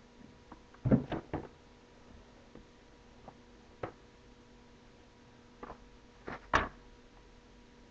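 Handling noise from unpacking a tablet's rigid box and its contents: a quick cluster of knocks and taps about a second in, a few faint taps, then two sharper knocks near the end. A faint steady hum runs underneath.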